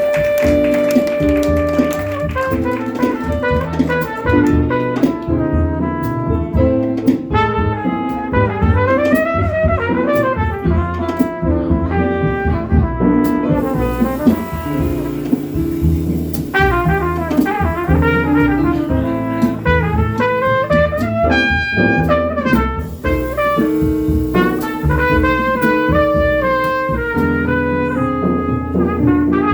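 Live jazz combo playing: a trumpet carries the melodic line over piano, bass and drum kit.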